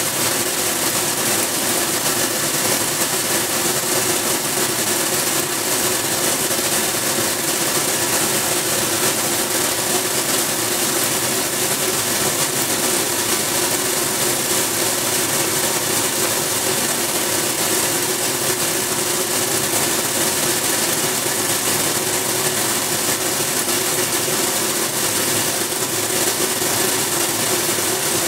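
Colour sorting machine running steadily while gum arabic granules stream through it and pour from its chutes into trays. It makes a continuous dense hiss and rattle over a steady hum.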